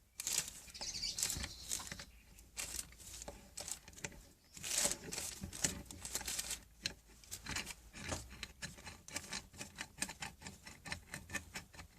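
Hands unpacking and handling a new drill press vice: rustling wrapping over the first couple of seconds and again about five seconds in, then a quick run of small metal clicks and knocks.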